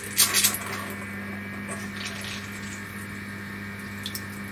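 Flood coolant running from a flexible nozzle onto the mill's cutter and workpiece, a steady splashing of liquid over the steady hum of the coolant pump. The splashing is a little louder in the first half second as the nozzle is aimed.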